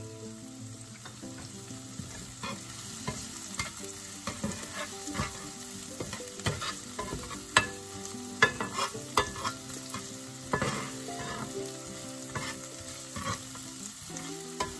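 Chopped onions and garlic sizzling in oil in a non-stick frying pan, with a spatula scraping and knocking against the pan as they are stirred, giving a scatter of sharp clicks over the steady sizzle.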